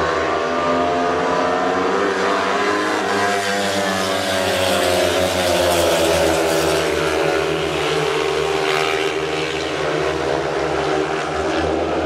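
Speedway machines racing round the track: several engines at high revs, their pitch rising and falling together as the riders go through the bends and straights.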